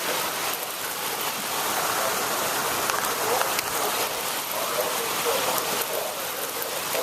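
Heavy thunderstorm rain pouring down, a steady, dense hiss.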